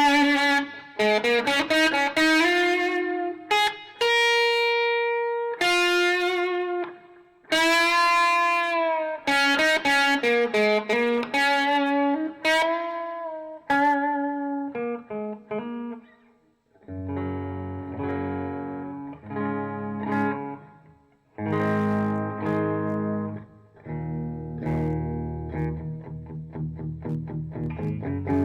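Ibanez S470 electric guitar played through an amp: single-note lead lines with string bends and vibrato, and a long held note about four seconds in, then chords for the second half.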